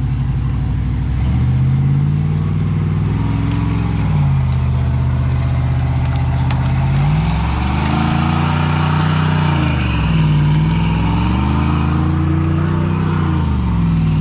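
Pickup truck engine revving up and easing off three times under heavy load as it pulls a fallen tree out of a pond on a tow strap.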